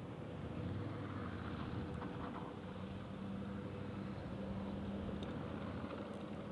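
An engine droning: a low steady rumble, with a steady hum that comes in about three seconds in and fades a couple of seconds later.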